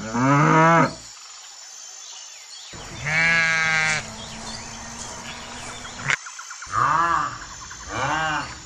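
A cow gives one low moo lasting about a second, then a sheep bleats once for about a second. Near the end, two shorter animal calls each rise and fall in pitch.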